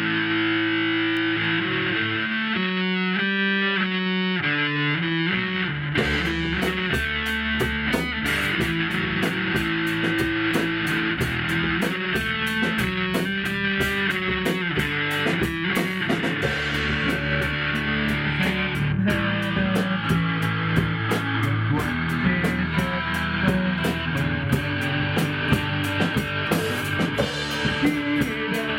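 Electric guitar playing rock music with other band instruments. A steady beat comes in about six seconds in.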